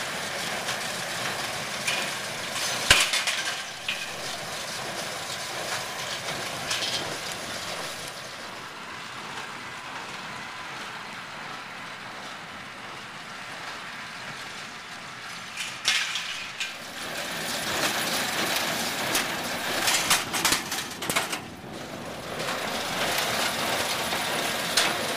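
Tractor and Welger baler running steadily in the field, with a few sharp clicks and knocks from the machinery. The machine noise drops lower for several seconds in the middle and comes back louder.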